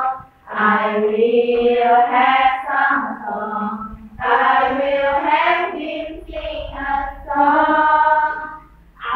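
A group of young women singing together in unison, a short memorisation song for English tenses, sung in phrases with brief breaks between them.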